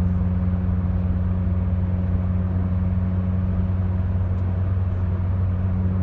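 Steady engine drone and road noise inside a Chevrolet Corsa's cabin, cruising at an even speed. The hum holds one low pitch throughout.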